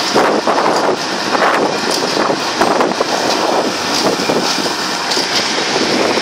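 Passenger train running at speed, heard from its open door: a steady rumble of wheels on the rails with irregular surges and wind on the microphone.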